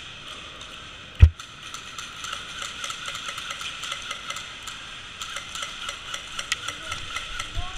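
A single loud thump about a second in, then a run of irregular sharp clicks and ticks over a steady hiss.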